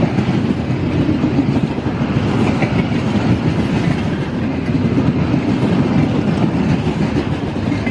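A train running along the track: a steady, continuous rumble of wheels on rails.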